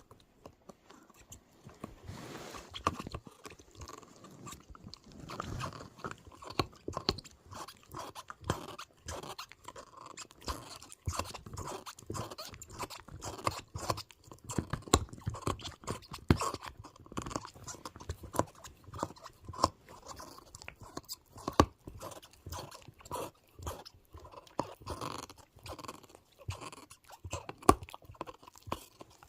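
A pet animal chewing steadily, a dense run of small crunching clicks, with its teeth squeaking as it chews.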